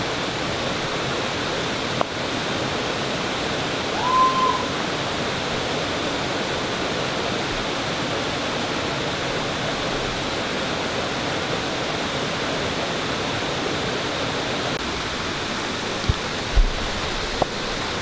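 Waterfall's falling water rushing in a steady, even roar, with a brief pitched call about four seconds in.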